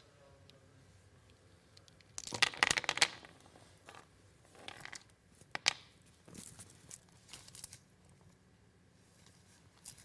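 Rustling and crinkling of clothing and a blanket being handled, in irregular bursts. It is loudest from about two to three seconds in, with a sharp click near the middle.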